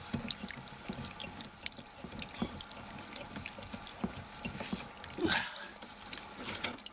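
Mains-pressure water squirting and splattering from a disconnected dishwasher supply-line fitting, because the old shut-off valve failed to close. The spray runs with many small splashes and drips, and there is a louder burst about five seconds in.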